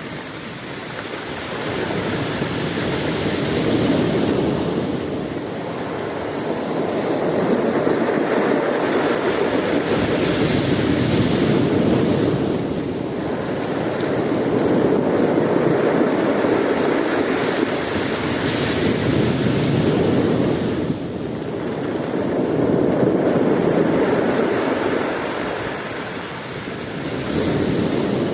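Ocean waves breaking and washing on a shore, rising and falling in slow surges every few seconds.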